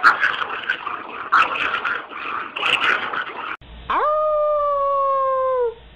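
A small dog howling: one long, held howl that rises fast at the start, holds for nearly two seconds and dips as it ends. Before it come a few seconds of rough, noisy bursts, which stop abruptly.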